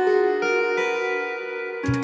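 Background music: a gentle melody of plucked string notes, with a drum beat coming in near the end.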